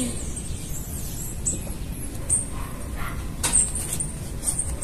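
Quiet background with a few short, high chirps of small birds and light knocks from a plastic plant pot being picked up and handled.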